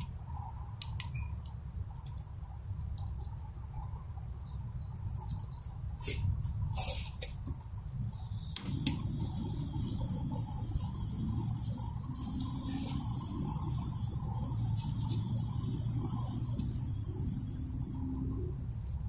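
Gas hissing steadily from a small burner on a nearly empty, chilled butane canister after the valve is opened and the gas lit, starting with two sharp clicks about eight and a half seconds in and stopping near the end; before it, scattered small clicks and handling knocks. It is a low-pressure burn from a cold, near-empty canister that gives only a weak flame.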